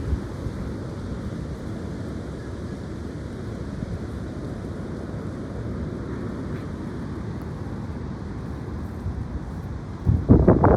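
High wind blowing steadily with a low rumble, then strong gusts buffeting the microphone near the end.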